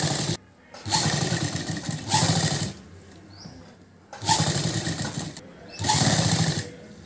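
Black domestic straight-stitch sewing machine running in short stop-start runs of one to two seconds, about four in all, as piping is stitched around a neckline.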